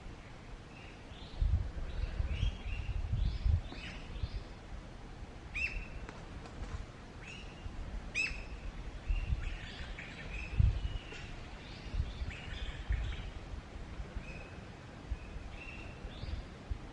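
Birds chirping in forest: many short calls, some sliding downward, scattered all through, over intermittent low rumbles.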